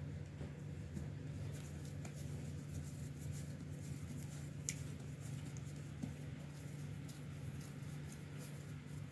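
Hands tearing off and rounding bread dough on a floured cloth: soft rustling, patting and light ticks, with one sharper click about halfway, over a steady low hum.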